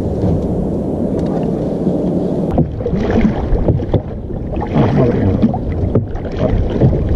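A small wooden fishing boat being worked at sea with no engine, with wind on the microphone and the low noise of water. About two and a half seconds in the sound changes abruptly to a fisherman rowing with a long wooden oar, with short pitched sounds that bend in pitch coming and going.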